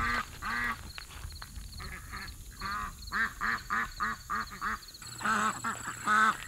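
Domestic ducks quacking over and over in short calls, with a quick run of about four quacks a second in the middle.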